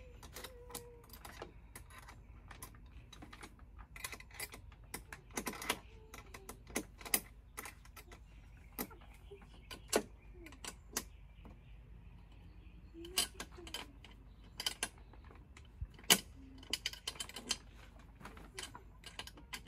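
Bolts, nuts and washers being fitted and tightened on the basketball backboard's metal top bracket: scattered sharp metal clicks and clinks, some in quick runs.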